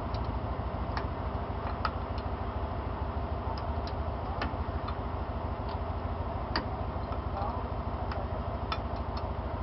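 Truck engine idling steadily, with scattered sharp clicks and taps at irregular intervals.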